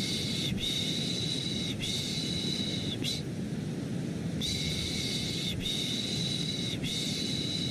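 Baby-sleep shushing sound, long "shh" strokes of about a second each in groups of three with a short pause between groups, over a steady, low, rumbling white-noise bed.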